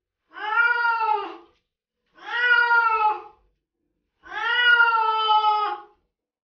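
A wet cat meowing three times while being bathed: long, drawn-out calls, each rising and then falling in pitch, the last one the longest.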